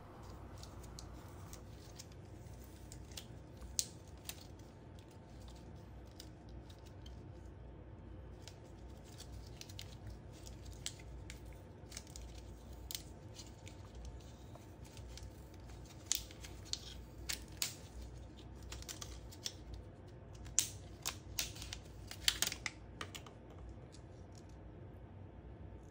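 Plastic heat shrink tubing being peeled off a four-cell 18650 battery pack by hand: faint, scattered crackles and clicks, coming thicker and louder in the second half.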